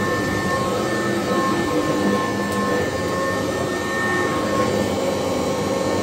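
Kirby Classic III upright vacuum cleaner running steadily as it is pushed over a rug, its motor giving a steady whine with a couple of high tones over a broad rush of air.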